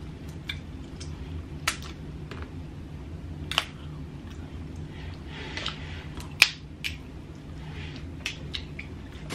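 Cooked snow crab leg shells being cracked and snapped apart by hand: scattered sharp cracks, the loudest about six seconds in, over a low steady hum.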